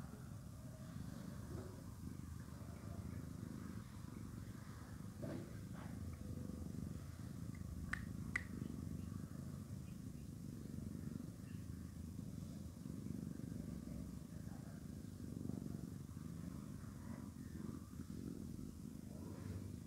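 Domestic tabby cat purring steadily close to the microphone, a continuous low rumble. Two short sharp clicks come about eight seconds in, half a second apart.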